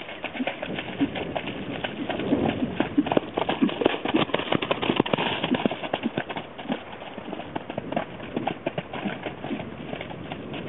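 Hooves of a Percheron cross and a Tennessee Walking Horse–Quarter Horse cross thudding and splashing through mud and puddle water as the two horses run and play-fight. The hoofbeats come thick and fast, loudest from about two to six seconds in.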